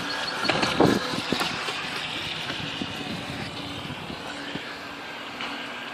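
A modified Fun-4 RC model boat running on the water, its motor a steady buzz over a hiss of spray.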